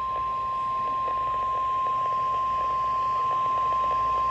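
NOAA Weather Radio warning alarm tone, a single steady tone near 1 kHz (the 1050 Hz alert tone), sounding without a break over a light hiss. It is the attention signal of a flash flood warning.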